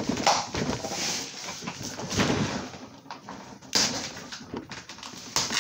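A large cardboard shipping box being pulled open by hand without a blade: cardboard scraping and rustling, with a couple of sharp snaps or knocks near the middle and end as the tape and flaps give.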